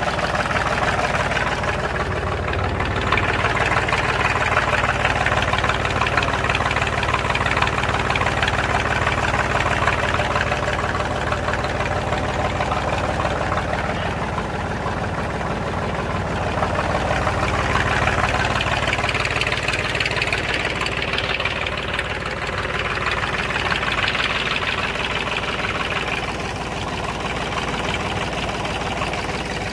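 Tractor diesel engine running at a steady idle while it drives a PTO-shaft spray pump. Over it a hissing water spray swells and fades.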